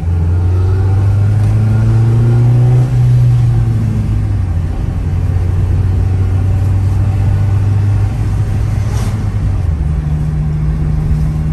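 Acura Integra GSR's four-cylinder engine under way, heard from inside the cabin. It climbs a little in pitch, breaks briefly about three seconds in, runs steady, and steps up in pitch near the end.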